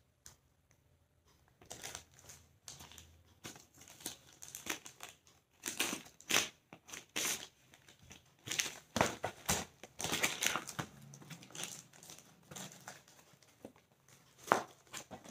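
Plastic polythene courier wrapping crinkling and tearing as it is pulled off a shoe box by hand, in irregular rustling bursts that start about a second and a half in.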